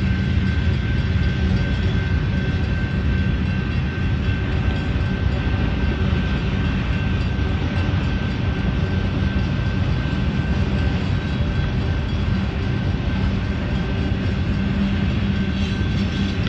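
Union Pacific mixed freight train rolling slowly past, a steady rumble of autorack and tank cars on the rails. A thin steady whine runs over the rumble.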